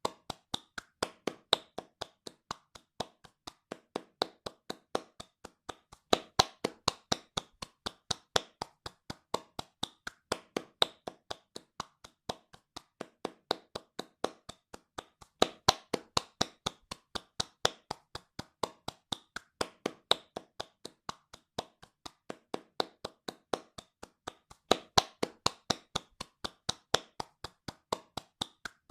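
Hands clapping fast and steadily, about three sharp claps a second, some louder than others.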